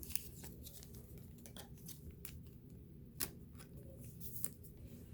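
Trading cards and pack wrapper being handled: scattered light clicks and short rustles, with a sharper click right at the start and another about three seconds in, over a low steady hum.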